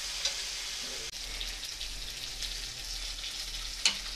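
Chopped onions, tomatoes and green chillies sizzling steadily in oil in a kadai, with a sharp click of metal about four seconds in.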